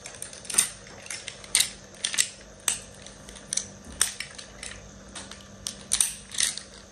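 Makeup brush blending product on the skin: irregular sharp clicks and light scratches, about one or two a second.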